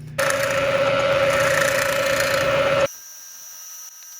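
Bridgeport milling machine running, drilling holes in a steel block: a loud, steady machine noise with a constant whine that starts just after the beginning and cuts off abruptly about three seconds in, leaving only a faint high steady tone.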